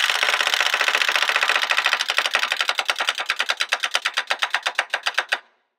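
Wind-up chattering teeth toy clacking and walking on a tabletop, a rapid plastic clatter that slows as its spring runs down and stops about five seconds in.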